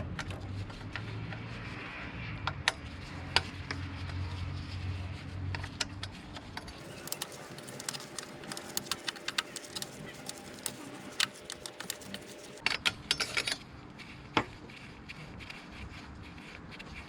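Hand tools on bolts: a T30 Torx bit working on the EGR pipe fasteners, with quick runs of clicks and metallic clinks that come thickest in the middle. A low steady hum sounds through roughly the first six seconds.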